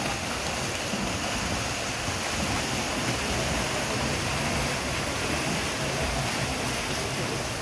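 Swimmers racing butterfly, their strokes splashing and churning the pool water in a steady rushing noise.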